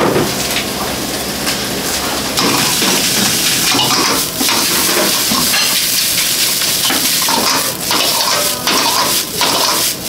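A metal ladle scraping and knocking against a wok as fried rice is stir-fried and tossed over a gas burner, over the hiss of frying. It gets louder about two and a half seconds in, with quick repeated clanks in the second half.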